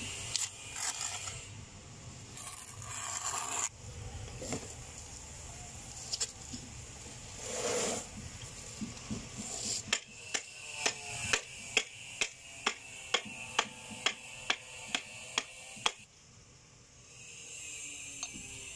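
A trowel scraping wet cement tile adhesive for the first few seconds, then steady tapping about twice a second for some six seconds as freshly laid mosaic tile sheets are knocked down level into the adhesive.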